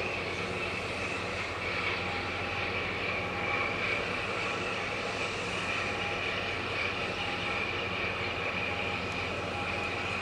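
Steady machinery drone from the container ship APL Vancouver passing close by: a low, even hum under a higher steady hiss, with no break or change.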